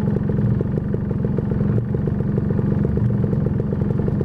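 Motorcycle engine, its big carburettor breathing through an air-filter box, running with a steady low drone.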